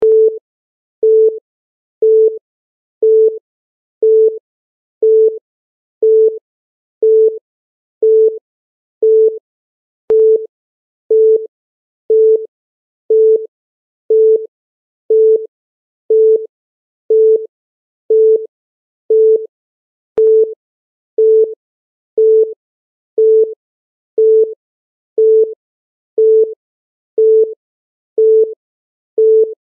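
Countdown timer beeping: a short electronic beep on a single tone, repeated evenly once every second, ticking off the seconds.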